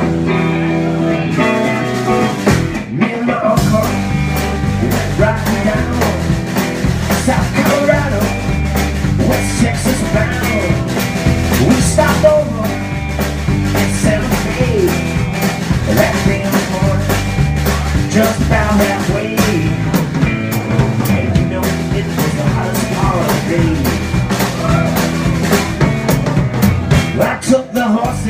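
Live bar band playing an upbeat song on electric guitar, electric bass and drum kit, heard close to the bass. The drums come in about three and a half seconds in and keep a steady beat.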